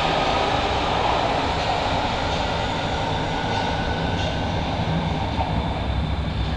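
Hamburg U-Bahn train pulling away into the tunnel from an underground station. Its running rumble carries on steadily, with the higher part of the sound slowly fading as it goes.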